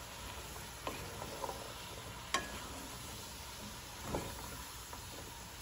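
Green beans and browned beef sizzling in a pot as a wooden spoon tosses them, with a few light knocks and scrapes of the spoon against the pot, the sharpest about two seconds in.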